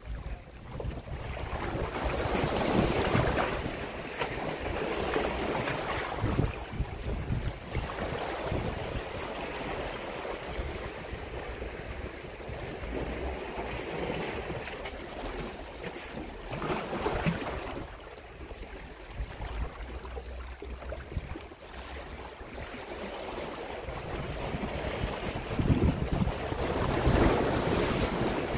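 Sea waves washing against shore rocks, rising and falling in several surges, with wind buffeting the microphone.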